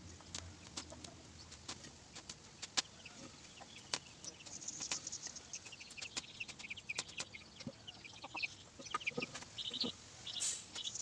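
Chickens clucking, with many short calls from about four seconds in and a louder burst near the end, over scattered sharp clicks.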